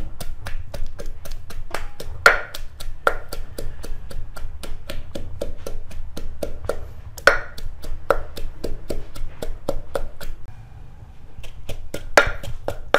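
Pestle pounding curry paste in a mortar: regular dull knocks, about three a second, crushing garlic, turmeric, chili and herbs into a paste. The pounding stops briefly near the end, then resumes.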